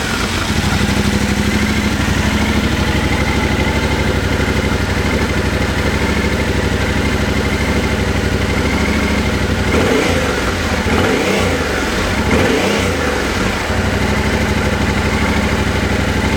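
Yamaha Ténéré 700's parallel-twin engine through its stock silencer, idling steadily, then revved in a few quick throttle blips about ten seconds in before settling back to idle.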